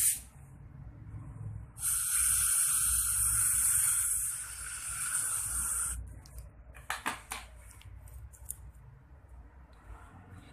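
A dental instrument's compressed-air spray hissing into the mouth for about four seconds, starting and cutting off sharply. A few faint clicks follow.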